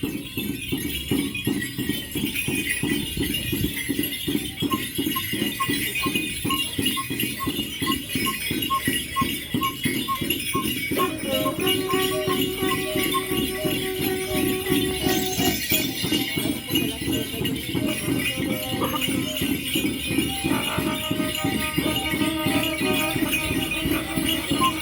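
Mapuche dance music: a fast, steady drum beat with jingling bells and rattles, and short repeated high notes and a few held tones over it.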